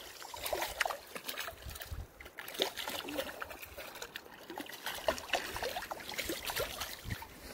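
A hooked trout thrashing in shallow water as it is pulled to shore, making a run of irregular small splashes.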